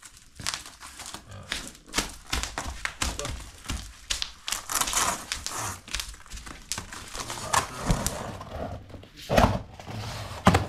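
Large cardboard box being opened and unpacked by hand: packaging rustling and crinkling, with scattered knocks as the parts inside are handled, and two louder thuds near the end.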